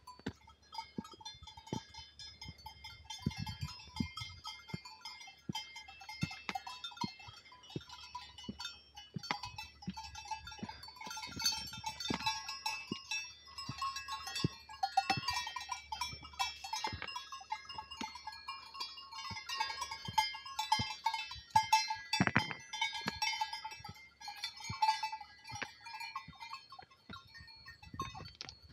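A herd of goats moving over a stone-paved track: goat bells clinking at fixed pitches, goats bleating, and many sharp clicks of hooves and footsteps on the stones. There is one louder knock about three quarters of the way through.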